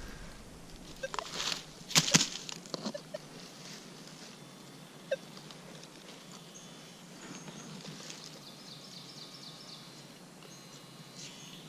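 Hand digging in soil under brush: a few sharp scrapes, clicks and rustles in the first few seconds, then quieter. Faint high chirping repeats in the background later on.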